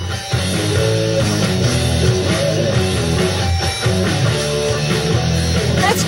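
Instrumental rock music: a guitar riff over a steady band backing, with no singing until a voice comes in at the very end.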